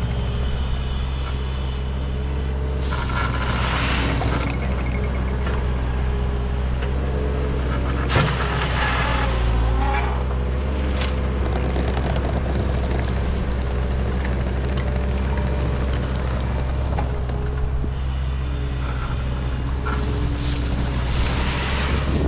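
Skid steer engine running steadily under load, with three louder stretches of scraping, rushing noise, a few seconds in, about halfway through and near the end.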